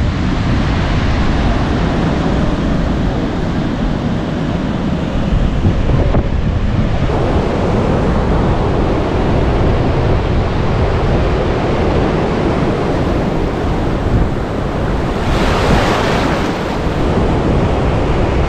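Surf washing over the shallows and waves breaking, with wind buffeting the microphone. A louder surge of water and wind comes near the end.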